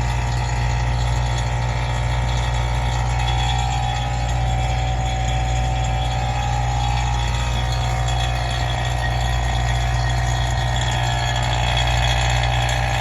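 Refrigeration vacuum pump running with a steady low hum, evacuating the fridge's sealed refrigerant system after the compressor swap.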